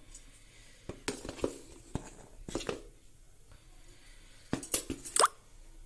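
Steel spoon scraping gram flour out of a plastic jar and tapping it into a steel mixing bowl: a run of light scrapes and clicks, the sharpest taps coming near the end.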